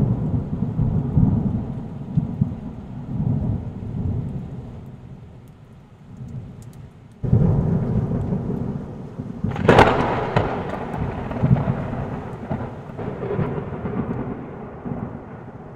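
Thunder rumbling in rolling waves, with a sudden louder roll about seven seconds in and a sharp crack about ten seconds in, dying away near the end.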